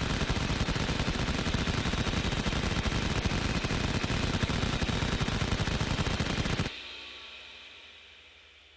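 Machine gun firing one rapid, unbroken burst for about seven seconds, then stopping abruptly. A fading hum with a slowly falling pitch follows.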